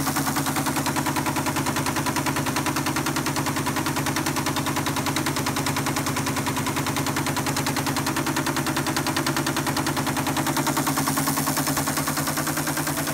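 ASR-33 Teletype paper tape reader clattering rapidly and evenly over a steady motor hum as it reads punched paper tape, loading Microsoft BASIC 1.0 into an Altair 8800.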